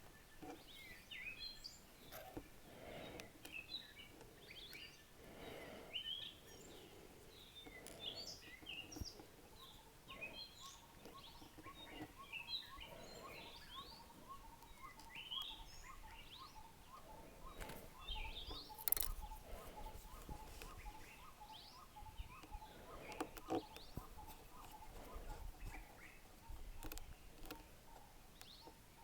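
Faint birdsong of many short chirps over a quiet background. A few soft knocks and a sharp click come through now and then.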